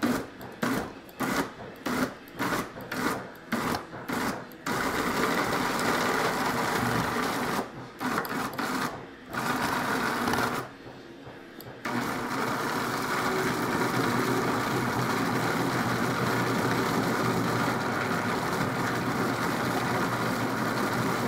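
Small West Bend electric chopper's motor and blade chopping mixed seafood and water. It is pulsed in short bursts about two a second for the first few seconds. It then runs in longer stretches with a few brief stops, and finishes with one long steady run.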